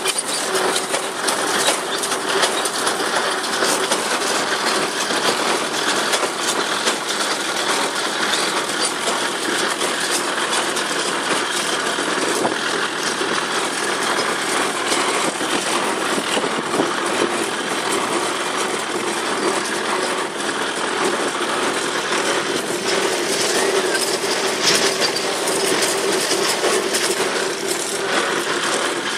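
Tractor engine running under load while pulling a small square hay baler, with the baler's mechanism clattering steadily.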